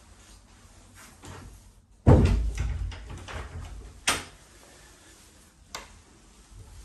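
A sudden heavy thump with some rattle about two seconds in, then two sharp clicks, the last as the lever handle of a wooden door is turned and the door is pulled open.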